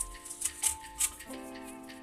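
Background music: held chords that change every second or so, over light, crisp percussion ticks.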